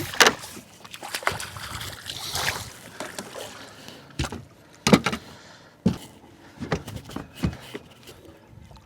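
Irregular knocks and thumps in a fishing boat with some splashing of water, as a freshly caught catfish is handled aboard.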